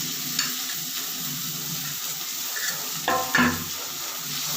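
Chopped onion sizzling in hot oil in a pan while being stirred. A few louder scrapes of the spoon against the pan come about three seconds in.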